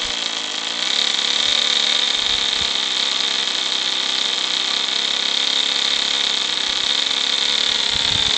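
Small model-aircraft glow engine in a balsa-wood RC Cessna, running at high revs with a steady high-pitched whine. The revs sag briefly just after the start and pick up again about a second in.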